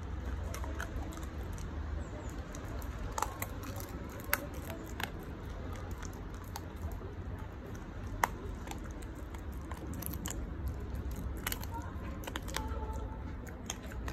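Keeshond puppy chewing a crispy chicken foot, with irregular sharp crunches every second or so over a steady low rumble.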